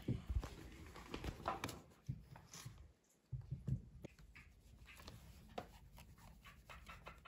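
Pomeranian sniffing close up, with scattered light clicks and knocks of plastic ride-on toy car parts being handled. The sound drops briefly to silence about three seconds in.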